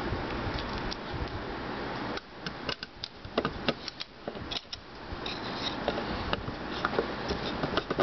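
Small metallic clicks and scrapes of a precision screwdriver working the platter-clamp screws on an opened hard drive's spindle, over a steady background hiss that drops away about two seconds in and returns about five seconds in.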